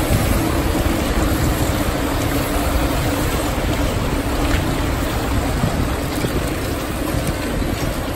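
A steady rumble and rattle of a large pack of mountain bikes rolling over cobblestones, their knobby tyres and rattling frames and chains passing close by in a continuous stream.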